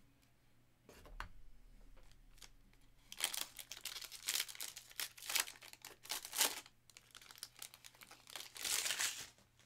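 Foil wrapper of a Donruss basketball trading-card pack crinkling and tearing as it is ripped open by hand, in a run of sharp crackling bursts from about three seconds in until near the end.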